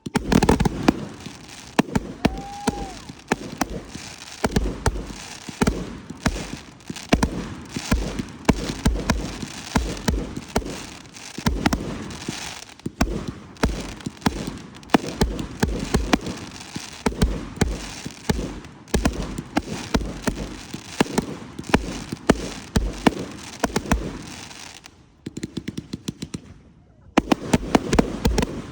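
Fireworks going off in a dense volley: many booms and sharp crackling bangs in quick, overlapping succession, easing off about three seconds before the end before another quick cluster of bangs.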